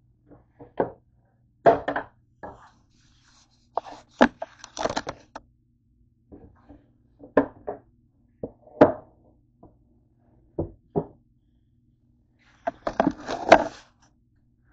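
A George Foreman contact grill being handled and set down on a countertop: irregular knocks and clunks, with a quick cluster of clatter near the end.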